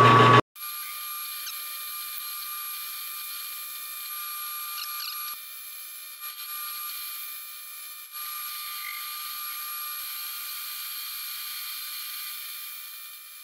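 Metal lathe taking a facing cut inside a cast pulley bore with a boring bar, a steady cutting sound carrying a thin high whine with no low end.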